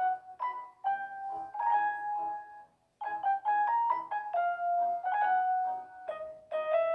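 Background piano music: a melody of separate notes with short pauses between phrases.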